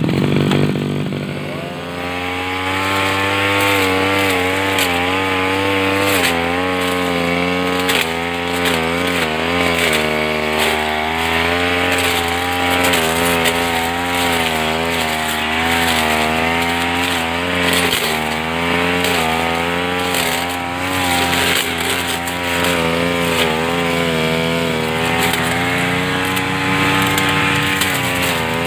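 Petrol grass cutter engine running, its pitch rising over the first couple of seconds and then wavering up and down as the engine speed shifts.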